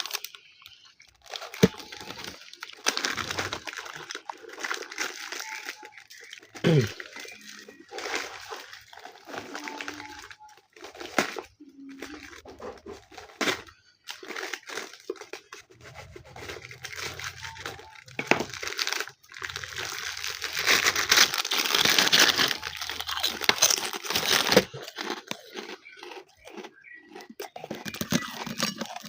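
Close-miked eating: irregular crunching and chewing of food, on and off, with a louder, busier stretch about twenty seconds in.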